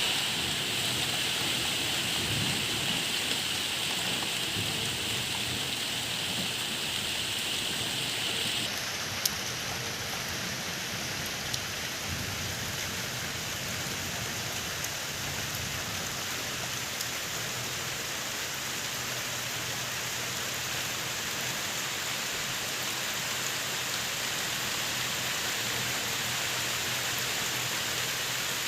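Steady rain falling. Its hiss changes abruptly about nine seconds in, and a few single sharp drop ticks stand out after that.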